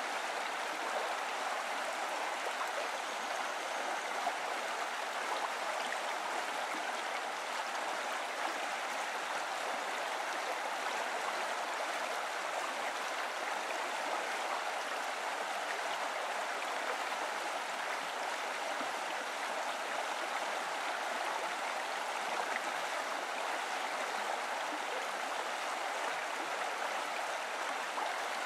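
Steady rushing of a stream, an even wash of running water that neither starts nor stops.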